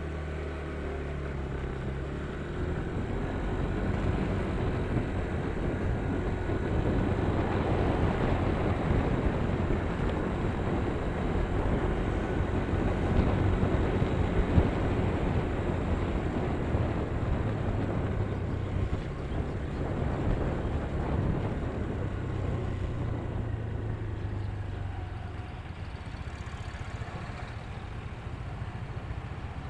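A vehicle travelling along a road: a steady low engine hum, then engine, tyre and wind noise that builds over the first several seconds and carries on at an even level.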